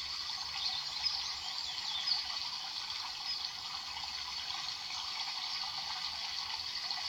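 Steady running water with small gurgles.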